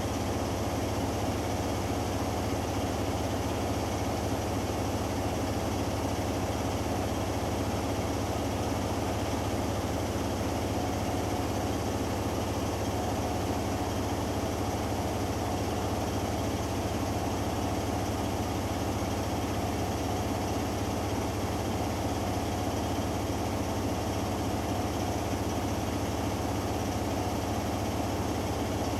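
Hoover Dynamic Next washing machine in its final spin, the drum spinning steadily with an even hum and whine; the programme is set to a 1300 rpm spin.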